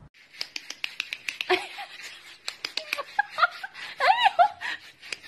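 Rapid sharp clicks, like a kitten's claws on a hard floor, with short high-pitched vocal sounds in the middle, the loudest about four seconds in.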